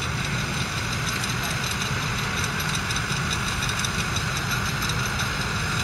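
Claas Arion 440's 4.5-litre four-cylinder diesel engine running steadily while the tractor drives a rotary tedder through cut grass.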